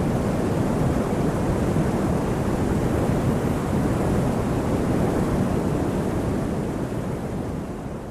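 Steady low rushing noise, even and without any tone, that begins to fade out over the last second or two.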